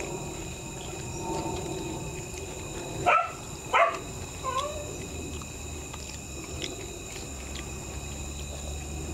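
A dog barks twice in quick succession about three seconds in, then gives a softer yelp that falls in pitch.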